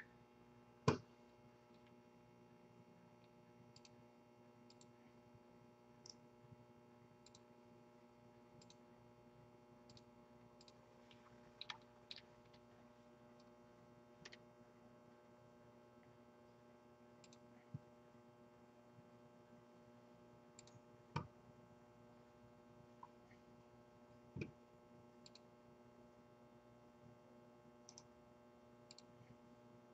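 Near silence: a faint steady room hum with scattered faint clicks and taps now and then, the sharpest about a second in.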